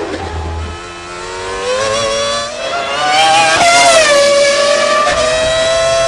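Honda V10 of a 2000 BAR Formula One car, heard from onboard. It pulls from low revs, rises steadily in pitch, breaks and drops in pitch about three and a half seconds in, then holds steady revs.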